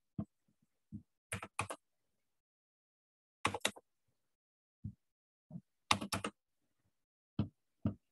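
Computer keyboard keys tapped in short clusters of two or three strokes, about nine clusters spread unevenly over eight seconds, with dead silence between them.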